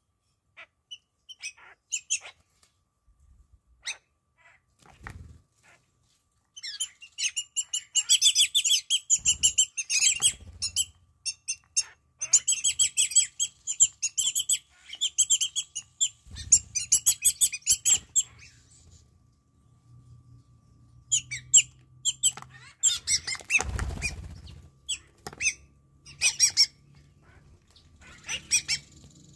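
Wattled starlings calling in a flock. Scattered single calls at first, then a long run of rapid, overlapping high chatter for about ten seconds, then scattered calls again. There are a few soft wing flaps as birds land and take off.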